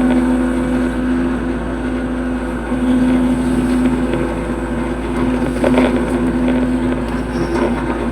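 Hitachi hydraulic excavator's diesel engine running steadily under working load, a constant drone.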